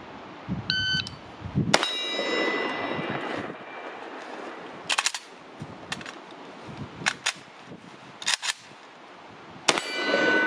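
A shot-timer beep starts a one-round reload drill with an AK rifle: one shot, a run of clicks and clacks as the magazine is changed and the rifle charged, then a second shot. A ringing tone lingers for a moment after each shot.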